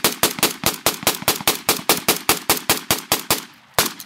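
A rifle firing blanks in a long fully automatic burst, about six or seven shots a second. The burst stops about three seconds in, and a single shot follows shortly before the end.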